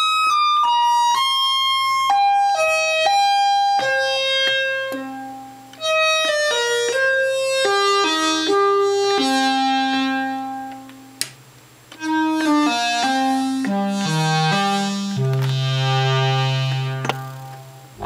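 Doepfer Dark Energy single-oscillator synthesizer playing single notes in three falling runs. Each run steps down from high to low, and the last ends on a long, low bass note.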